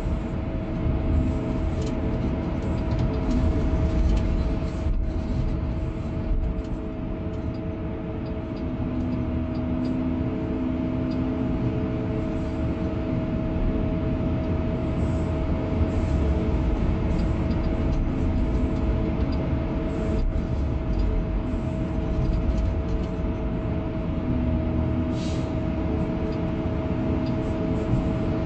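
Hydraulic excavator's diesel engine running steadily under load as it digs and dumps soil, a heavy low rumble with a steady tone above it and a few scattered clicks and knocks.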